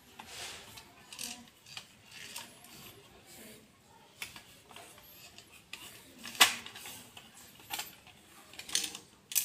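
Hard plastic toy horse being handled and turned over in the hand, giving irregular plastic clicks and knocks, the sharpest about six and a half seconds in.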